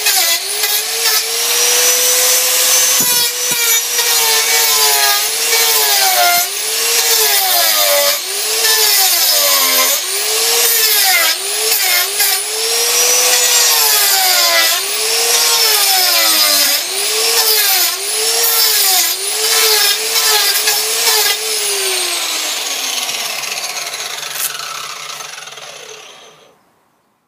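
Titan variable-speed angle grinder with a carving disc cutting into pine. The motor's whine sags every second or so as the disc bites into the wood and picks up again between passes. Some 22 seconds in it is switched off, and the whine falls away as it spins down to silence.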